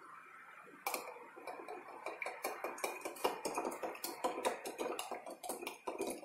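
Small glass vial clinking again and again against the inside of a glass jar of hot water as it is swirled by its cap, a quick irregular run of sharp clinks about five a second that starts about a second in.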